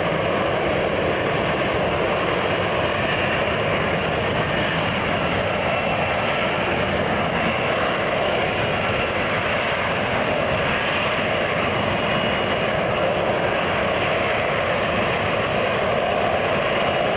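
Lockheed Martin F-35B jet in hover, its engine and lift fan running in short-take-off-and-vertical-landing mode: a steady, loud rushing jet noise that holds without a break.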